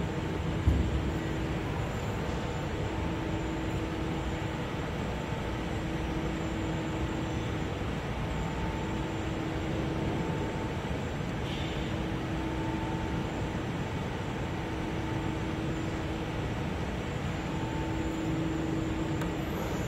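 Steady mechanical hum of a Suntec ST-T350 two-axis CNC metal lathe running, with a low tone that cuts in and out every few seconds. A single knock about a second in as the sliding guard door is shut.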